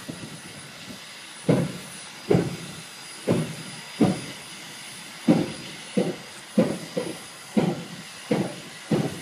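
Santa Fe 3751, a 4-8-4 steam locomotive, hissing steadily. About a second and a half in, rhythmic chuffs start, roughly one a second at first and quickening toward the end.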